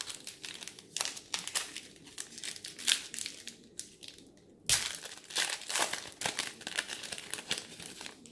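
Plastic wrapper of a 2018 Score football card pack being torn open and crinkled by hand, in a busy run of crackles with a sudden louder crackle just past halfway.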